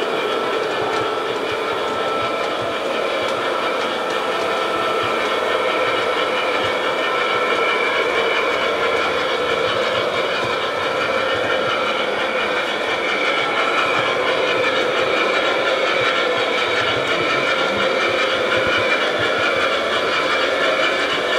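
Gauge 2 model trains running on the layout: a steady whirr of their electric motors and wheels rolling on the track.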